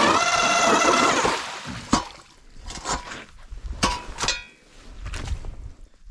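StrikeMaster Lithium 40V battery-powered ice auger running with a steady motor whine as it bores through lake ice, then winding down about a second in. A few sharp knocks follow.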